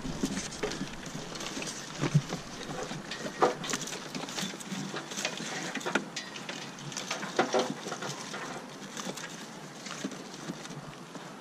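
Uneven rustling with scattered light knocks and clicks as a car's wiring loom is pushed and tugged through the firewall by hand.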